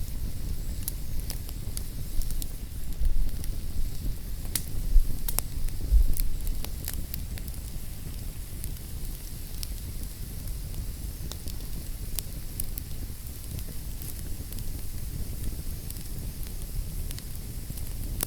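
Wood fire crackling in a fireplace: a steady low rumble of flames with irregular sharp pops and snaps, busiest and loudest for a few seconds near the start.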